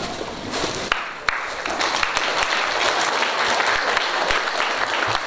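Congregation applauding, a dense steady clapping from many hands.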